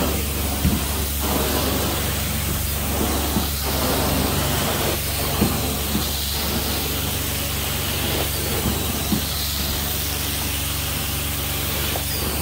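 Carpet-cleaning extraction wand spraying and sucking water out of carpet: a steady hiss that surges every second or so with each pass, over the constant hum of the extraction machine.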